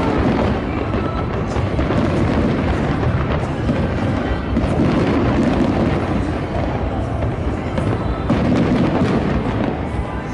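Music playing, with fireworks bursting and crackling throughout.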